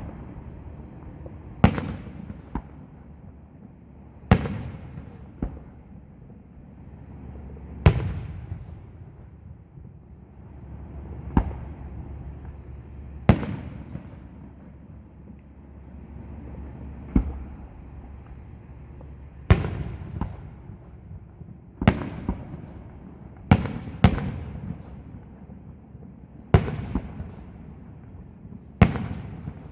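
Fireworks display: aerial shells bursting with sharp booms every two to four seconds, about a dozen in all, each followed by a rumbling echo that dies away.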